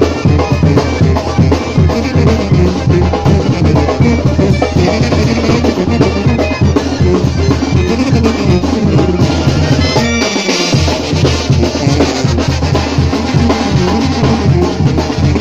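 Mexican street brass band (banda) playing loudly: brass over a fast, steady beat of bass drum, snare and crashing hand cymbals. The low drum beat stops for a moment about ten seconds in.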